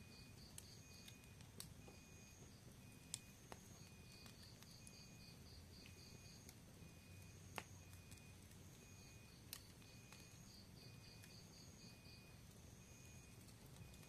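Faint wood-and-paper fire in a cinder-block pit, with a few sharp crackling pops scattered through and a low steady rumble of flame. Behind it, insects chirp faintly in evenly repeating trains.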